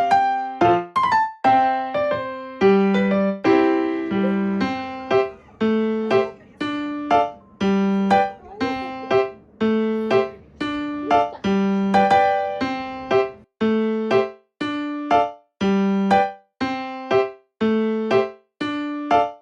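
Background music: a piano-like keyboard playing a gentle, evenly paced melody of single struck notes, each ringing and fading.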